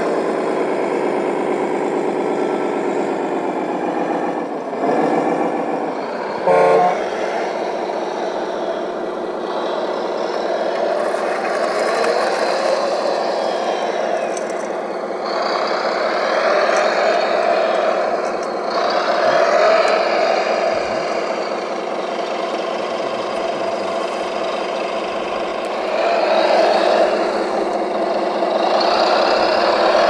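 Radio-controlled construction vehicles running: a steady mechanical whine from their motors that rises and falls in pitch, with a short louder sound about six and a half seconds in.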